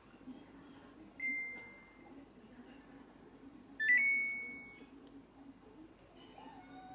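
Electronic beeps from a Samsung Eco Bubble washing machine's control panel: a single tone about a second in that fades away, then a two-note beep stepping up in pitch near four seconds.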